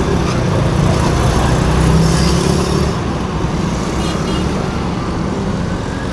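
Heavy vehicle engine running steadily with a low rumble.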